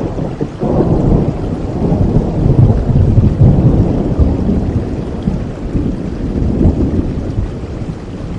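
Thunder rumbling over steady rain: a low roll that swells about half a second in, peaks a couple of seconds later and slowly dies away.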